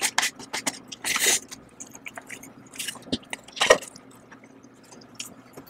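Close-up drinking and chewing sounds as noodles and soup are taken straight from a paper cup-noodle bowl tipped to the mouth, then a single knock about three and a half seconds in as the bowl is set down on the table.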